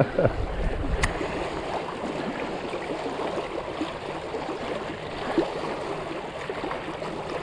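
Water trickling steadily, with a single sharp click about a second in.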